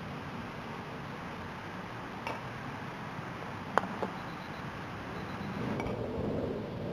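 Croquet mallet striking a ball: one sharp clack a little under four seconds in, followed a moment later by a softer click, with a couple of faint taps before and after over steady outdoor background noise.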